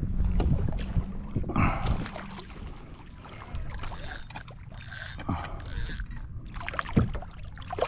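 Knocks and splashing water on a sit-on-top fishing kayak (an Old Town Autopilot 120) while a caught fish is handled, with wind rumble on the microphone for the first two seconds and a sharp knock about seven seconds in.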